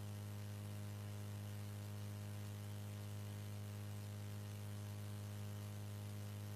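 Steady electrical mains hum and buzz from a sound system, with faint hiss underneath and no music or voice.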